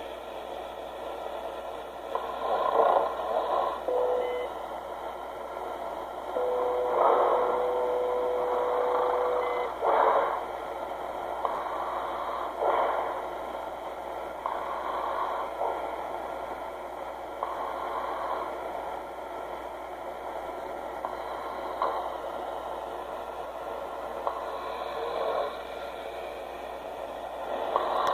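A man snoring, one snore every two to three seconds. One longer snore carries a steady whistling tone.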